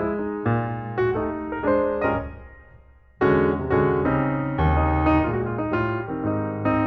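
Background piano music, with a pause of about a second in the middle before the playing comes back in full.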